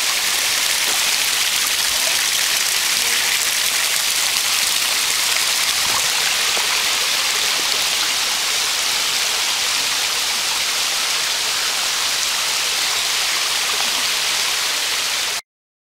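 Creek water running over rocks, a steady hiss that cuts off suddenly near the end.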